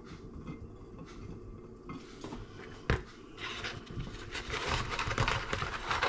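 Kitchen handling sounds as fish fingers are laid out, three of each: a sharp knock about three seconds in, then a rustling hiss that grows louder toward the end.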